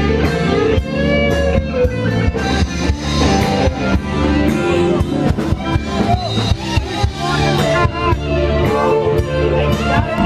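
Rock music: electric guitar with bending notes over drum kit and bass.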